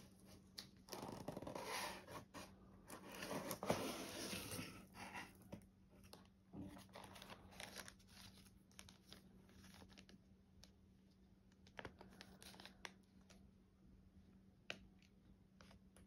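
A cardboard box being torn open: a loud stretch of tearing and scraping cardboard over the first few seconds. Quieter plastic-bag crinkling and light handling clicks follow as the bagged contents are handled.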